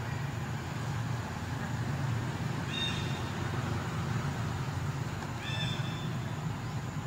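Young macaque giving two short, high-pitched calls about three seconds apart, each held on one pitch, over a steady low hum.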